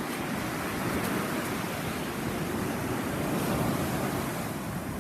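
Ocean surf breaking on the beach, a steady loud rush that swells a little about a second in and again past the middle, with wind buffeting the microphone.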